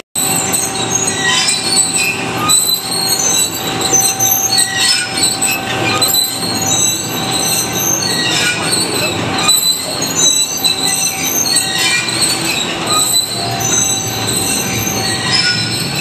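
John Deere 568 round baler running, a loud continuous mechanical clatter overlaid with many shifting, high-pitched metallic squeals and screeches.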